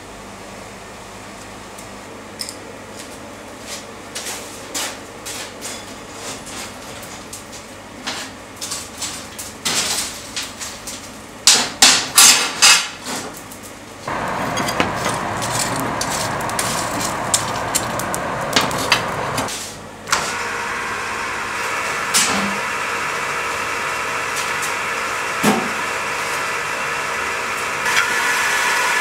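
Metal tools and steel stock clinking and knocking, with a quick run of loud metal-on-metal strikes a little before the middle. Then a machine starts up and runs steadily through the second half, the blacksmith's forge and power-hammer equipment in use.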